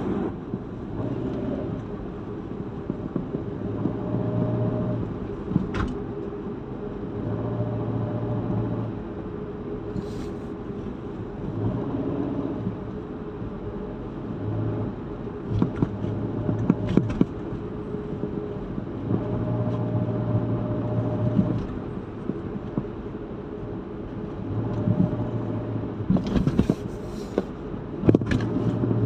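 Motor vehicle driving and accelerating several times, the engine note swelling with each push, with intermittent rattling and clicking that comes only under acceleration and not when the engine is revved in neutral; its cause is unknown.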